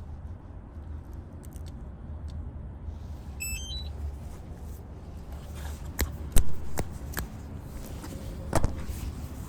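Steady low rumble with a quick run of short high electronic beeps changing in pitch about three and a half seconds in, then a few sharp clicks or knocks, the loudest about six seconds in.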